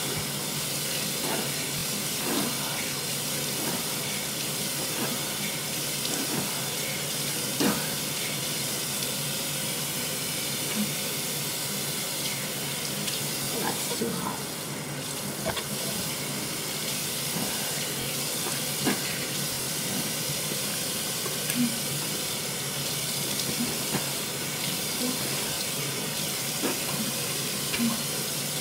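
Bathroom tap running steadily into a sink, with scattered splashes as water is scooped up and onto the face to rinse off face wash.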